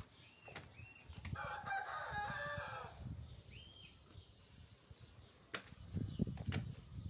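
A rooster crows once, about a second in: a single drawn-out call of about a second and a half. Small birds chirp now and then, and footsteps and handling thumps come near the end.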